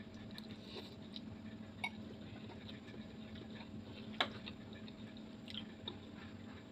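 Faint wet chewing and slurping of a mouthful of pancit noodles, with a few sharp clicks, the loudest about four seconds in, over a steady low hum.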